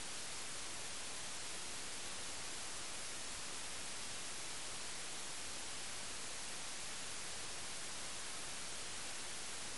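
Steady, even hiss from a soundless old video transfer, with no other sound.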